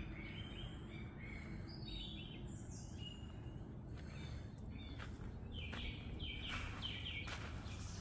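Wild birds calling: a string of high whistled notes that step up and down in the first few seconds, then a quick run of about half a dozen repeated notes near the end, over a low steady background noise.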